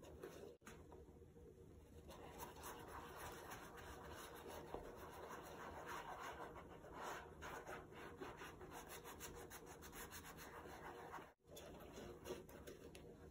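Faint rubbing and scratchy handling noise of gloved hands turning over and opening a full-grain leather Coach Carnival crossbody bag. The sound drops out briefly twice, about half a second in and near the end.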